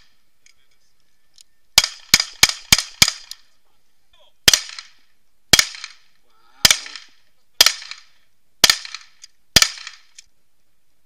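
Pistol shots fired at a range target, each with a short echo: a quick string of five shots about two seconds in, then six slower, evenly spaced shots about one a second.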